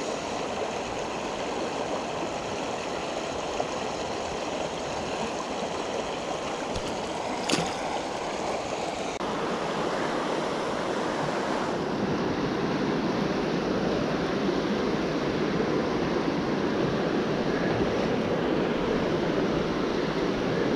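Shallow rocky river rushing steadily over riffles, heard close by, with one sharp click about seven seconds in. The water gets louder a little past halfway and stays that way.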